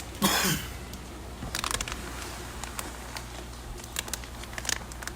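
Plastic fish-shipping bags being handled: a brief loud rustle near the start, then scattered crinkles and clicks over a steady low hum.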